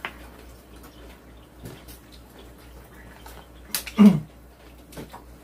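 Close-miked eating sounds: chewing and light clicks of chopsticks and a utensil against plastic food containers while eating braised semi-dried pollack. There is one louder knock about four seconds in.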